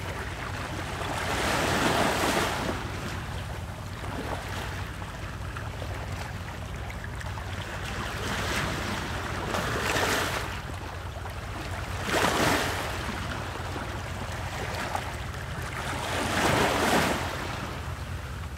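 Ocean waves: a steady low rumble of surf with four louder swells of washing water rising and falling, about two seconds in, near the middle twice, and near the end.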